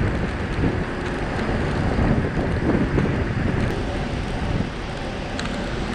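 Wind rushing over the microphone mixed with tyre rolling noise while riding an e-mountain bike at speed.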